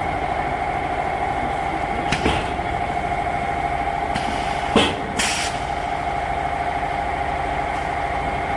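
Filter bag seam welding machine running with a steady hum and a held mid-pitched tone, and three short clicks or knocks about two, nearly five and just over five seconds in.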